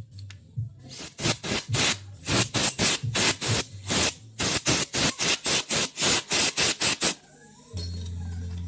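Compressed-air blow gun blowing out small carburetor parts in rapid short blasts, about three or four a second, to clear blocked passages. A steady low hum starts near the end.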